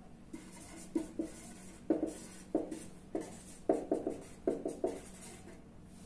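Marker pen writing on a paper sheet: a series of short squeaky strokes, with a quick run of strokes a little after halfway. A faint steady hum lies underneath.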